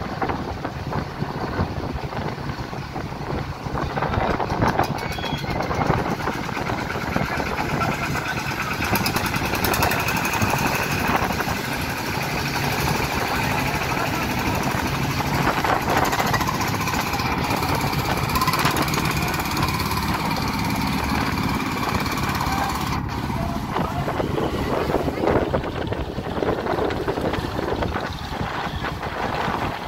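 Diesel engines of a wooden river trawler and a passenger launch running steadily side by side, with people's voices calling over them.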